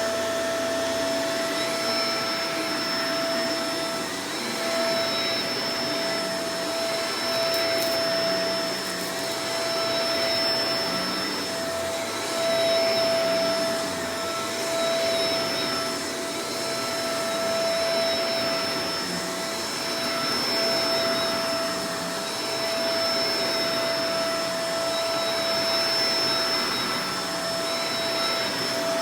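Shark Professional Powered Lift-Away DLX (NV586) vacuum cleaner running, a steady motor whine over rushing air, its loudness swelling and easing about every two seconds.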